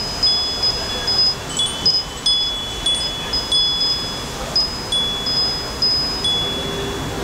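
Wind chimes ringing: high clear notes at a few fixed pitches, struck at irregular moments and each ringing on briefly, over a steady hiss.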